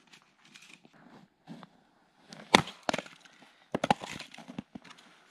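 Hatchet splitting firewood: a sharp blow into the wood about halfway through, a second just after, then a quick cluster of strikes and splitting cracks a second later, with smaller knocks of wood between.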